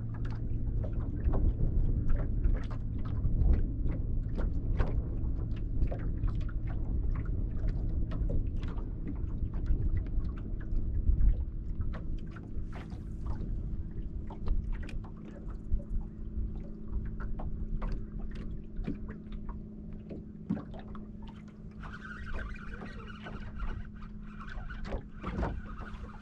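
Lake water lapping against the hull of a fishing boat, with a low rumble and many small ticks and splashes. A faint steady hum joins about ten seconds in, and a higher whine near the end.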